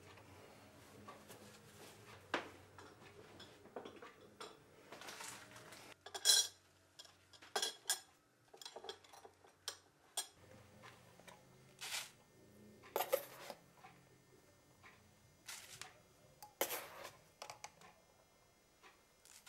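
Quiet clinks and knocks of crockery and kitchen things being handled, a cup, saucer and spoon and the plastic parts of a drip coffee maker, in scattered single taps, the loudest about a third of the way through, over a faint low hum.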